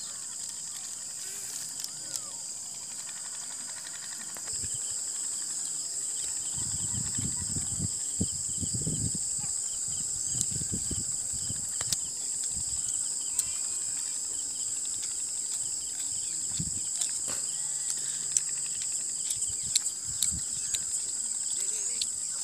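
Steady high-pitched chorus of insects chirring, growing louder about four seconds in, with scattered soft clicks and some low rumbling.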